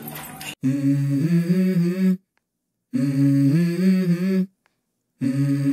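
A short hummed melody of a few upward pitch steps, sounding three times in the same form with clean silent gaps between. It is the edited intro sting over the episode title card.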